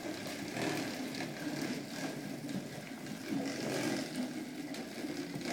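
Hard plastic wheels of toddlers' ride-on bikes rolling across hardwood floorboards, a continuous rumble.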